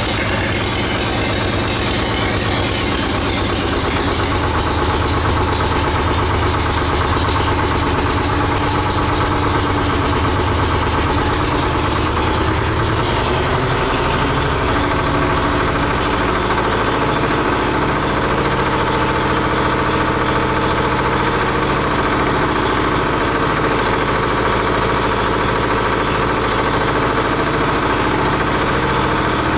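GM Detroit Diesel 1-71 single-cylinder two-stroke diesel running steadily at idle with an even, rapid beat. The beat changes slightly about halfway through.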